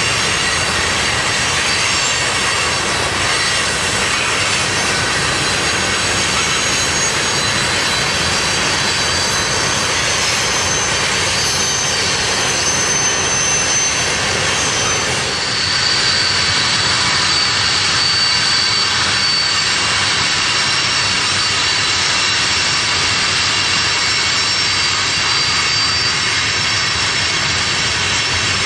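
Manifest freight train's boxcars rolling past: a steady rumble and roar of steel wheels on rail, with thin high-pitched whines held over it.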